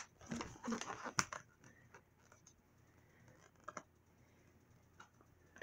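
Toy packaging being handled: rustling and small sharp clicks, busiest in the first second or so, then a few isolated clicks.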